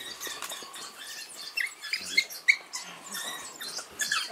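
African wild dog pups twittering in quick high squeaks and chirps, amid rustling: the begging calls of pups being fed.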